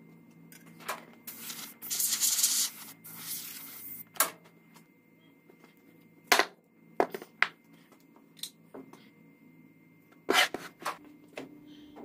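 Molding sand being worked by hand in a mold flask: a scraping, rubbing rush for about two seconds, then a handful of sharp separate taps and knocks.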